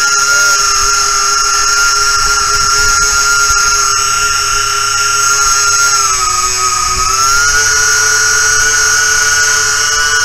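Twin brushless electric motors and propellers of an RC Aero Commander model running steadily at part throttle, a steady whine whose pitch sags briefly a little past halfway and then comes back up. The 2S LiPo is down to about 3.36 volts per cell, and the owner takes the early cutting-out for the speed controller hitting its low-voltage cutoff.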